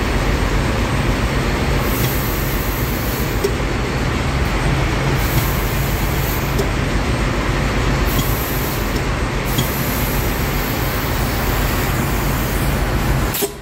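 Compressed air rushing steadily through a main engine starting air valve under test, a loud even hiss with a low rumble underneath, which cuts off suddenly near the end.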